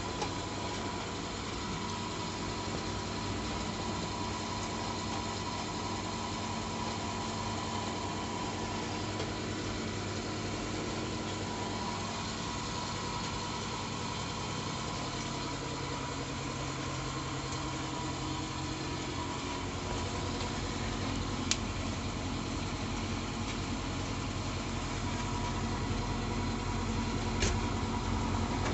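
Homemade pellet boiler running: a steady mechanical hum with a few held tones, growing somewhat louder near the end. Two short sharp clicks sound in the last third.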